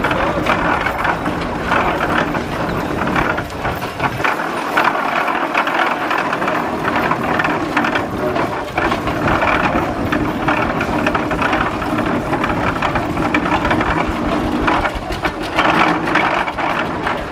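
1906 Frick steam tractor running as it drives along, its gearing and running gear clattering and rattling steadily.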